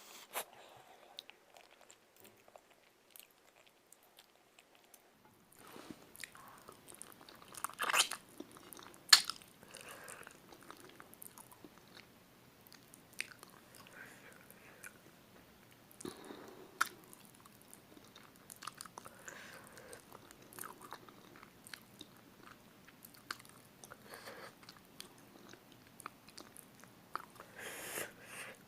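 Close-up eating of spicy chicken feet: wet chewing and biting with scattered sharp clicks and crunches. Two louder clicks come about eight and nine seconds in, after a quiet first few seconds.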